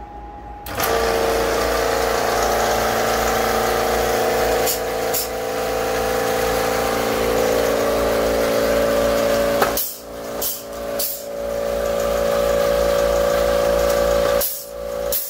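Powered epoxy gun running steadily as it drives epoxy through its nozzle into rotted ceiling wood: a motor hum with a hiss over it. It starts just under a second in, drops out briefly about ten seconds in, and stops again near the end.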